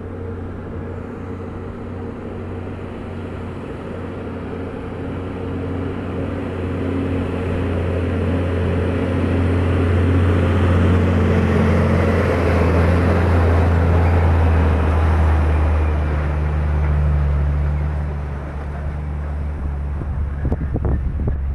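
Scania truck's diesel engine pulling up a ramp under load. Its low hum grows louder as the truck approaches and passes close by, then fades as it moves away, with a change in engine pitch partway through.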